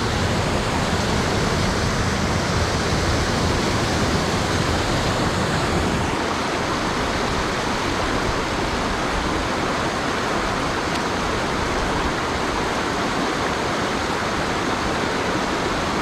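Mountain headwater stream rushing steadily over rocks and small cascades, running high with rain and snowmelt.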